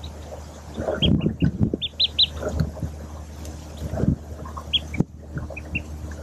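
Mallard ducklings peeping in short high notes, in quick runs of two or three. Low soft thuds and rustling come from the hen shifting on the nest right beside the microphone.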